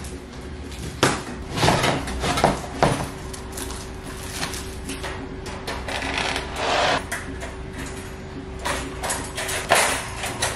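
Folding wire dog crate being unfolded and set up by hand: its metal wire panels clank and rattle, with a few sharp clanks about a second, two and three seconds in, a longer rattle around the middle and another clank near the end.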